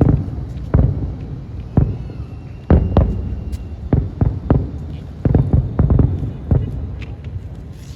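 Fireworks shells bursting in a quick, irregular volley: about a dozen deep booms over the stretch, each fading out quickly.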